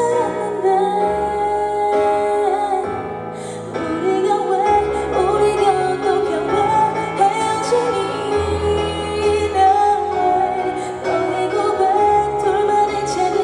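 A woman singing a slow pop ballad live over a band backing track, her voice carrying long held, wavering notes.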